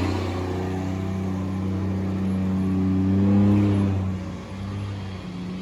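Ford Cargo 2428 truck's diesel engine pulling, its pitch rising for a couple of seconds and then dropping back about four seconds in.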